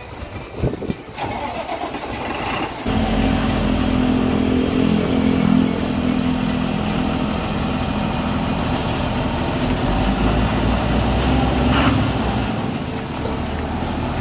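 Diesel coach bus engine starting about three seconds in, then running steadily at idle with a deep, even hum.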